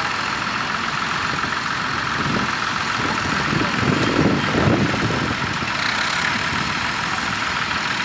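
Vintage Massey Ferguson tractor engine running steadily under load as it pulls a plough through the ground, swelling a little louder about four to five seconds in.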